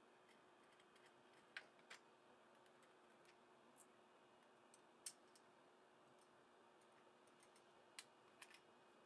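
Faint, scattered small clicks and taps of a 3D-printed plastic display case being handled and fitted together, a few sharp ticks spread apart over a low steady room hum.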